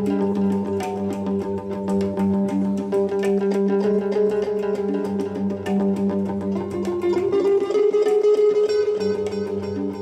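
Live instrumental music from a hang drum and an electric guitar: struck and plucked notes over a steady low drone, with a sliding note about seven seconds in.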